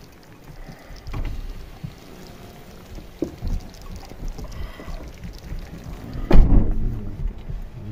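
Low rumbling noise inside a vehicle at an open window, with a few light knocks and a louder bump about six seconds in as the phone is moved around the cabin.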